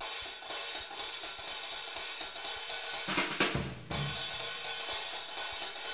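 Jazz drum kit opening a swing tune: a steady cymbal and hi-hat rhythm with snare, with a louder accent from the band about three seconds in.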